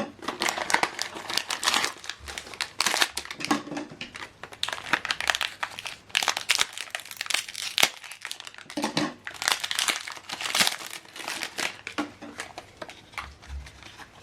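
Packaging of an HP 65 XL black ink cartridge crinkling and rustling as it is handled and unwrapped, in irregular crackly bursts throughout.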